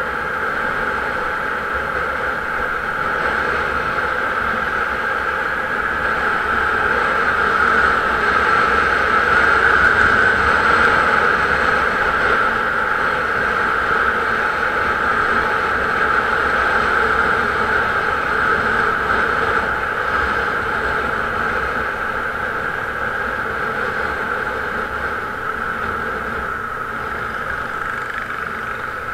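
Steady running and wind noise from a vehicle travelling along a road, an even drone that swells a little in the middle.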